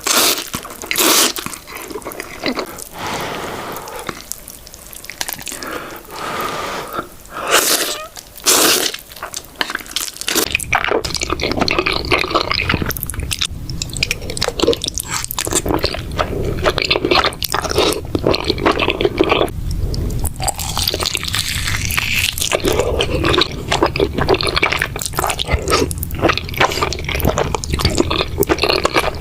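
Close-miked eating of Buldak spicy noodles: wet slurping, squishing and chewing. About a third of the way in the sound changes to denser, quicker mouth noises over a steady low hum.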